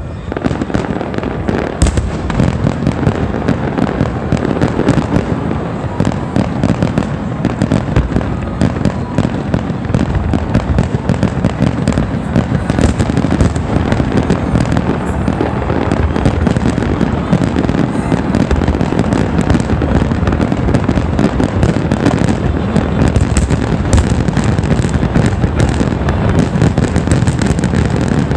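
Aerial fireworks finale: a dense, continuous barrage of shell bursts and crackling, the bangs running into one another and growing denser and louder toward the end.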